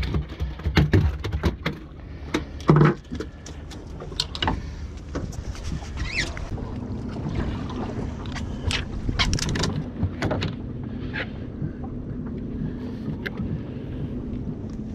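A blackfish thumping and flopping on a fibreglass boat deck as it comes off a dehooker, several loud knocks in the first three seconds. Then a steady low hum and light wash with scattered sharp clicks.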